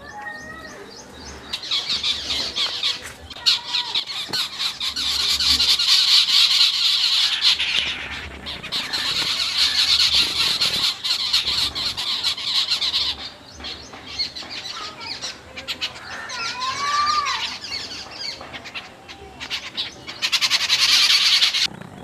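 A flock of babblers calling with harsh, raspy, squawking chatter in loud bouts. There is a long stretch of chatter, a lull with a few single calls, and another burst near the end.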